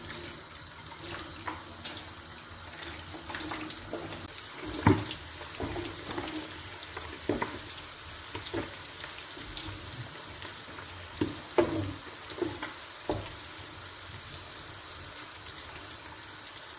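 Diced liver frying in hot oil in a pan with a steady sizzle, broken by scattered knocks and scrapes of a spatula against the pan as the pieces are stirred.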